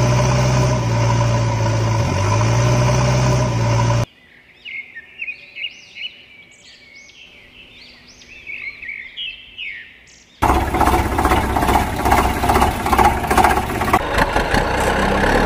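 Vehicle engine sound running steadily with a low hum, cutting off abruptly about four seconds in. Birds chirp for about six seconds, then the engine sound cuts back in suddenly, louder and rougher, and runs on.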